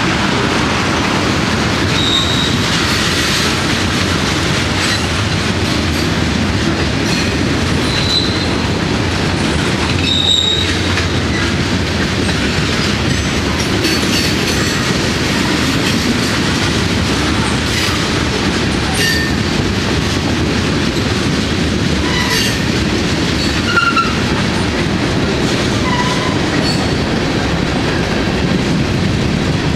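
Freight train cars, tank cars and covered hoppers, rolling past with a steady loud rumble of steel wheels on rail. Faint clicks come over the rail joints, and short high wheel squeals sound every few seconds.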